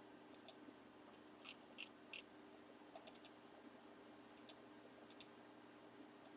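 Faint computer mouse clicks, a scattered handful of single and quick double clicks, over a low steady hum.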